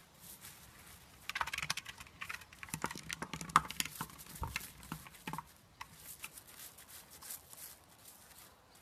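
Loose gravel crunching and rattling as a dachshund puppy digs and noses in it with its paws, a dense run of small clicks for a few seconds, then only scattered clicks.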